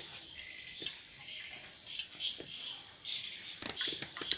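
Night insects chirping: short chirps repeating every half second or so over a thin, high, on-and-off trill, with a few sharp clicks near the end.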